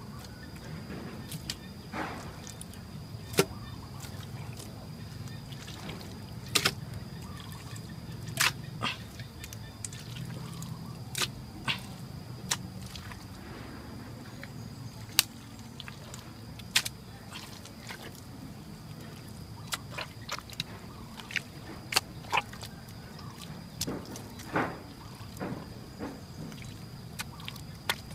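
Wet mud being pressed and slapped by hand around a glazed clay jar, giving irregular wet squelches and sharp slaps. A thin steady high tone runs underneath.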